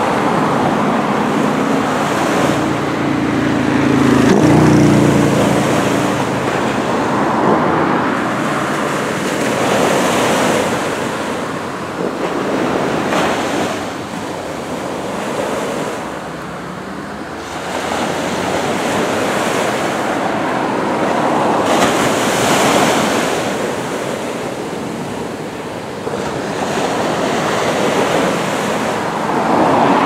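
Small surf breaking and washing up a sand beach, the rush of water swelling and fading every few seconds. About four seconds in, a passing vehicle's engine hum swells and drops in pitch.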